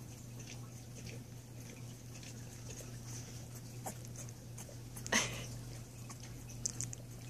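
Two-week-old pit bull puppy letting out a short, sharp squeal about five seconds in, with a fainter squeak a little before it, while being rubbed on its belly.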